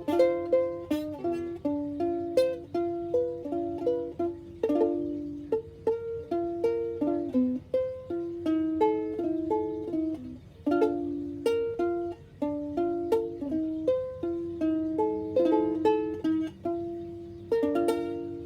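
Solo ukulele playing an instrumental passage: picked melody notes over chords, with occasional strummed strokes.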